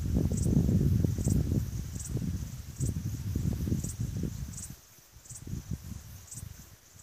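Wind rumbling on the microphone, strongest in the first few seconds and easing off about five seconds in. Behind it, a meadow insect chirps steadily in short high-pitched pulses, about one every two-thirds of a second.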